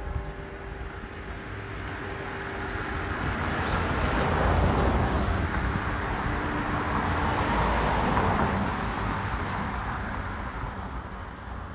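Street traffic: a vehicle passing, its tyre and engine noise swelling over a few seconds and then fading away.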